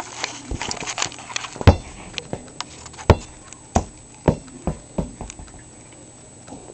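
A series of sharp knocks and thumps close to the microphone at irregular intervals, the loudest in the first half, thinning out and fainter toward the end.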